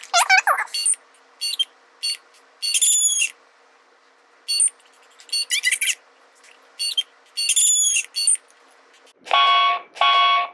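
Reizen talking alarm clock giving short electronic beeps, with a few chirping, whistle-like glides and two longer tones near the end, as its buttons are tried while setting it.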